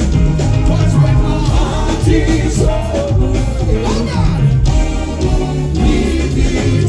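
Live band music with a steady bass line and drums, and singing over it.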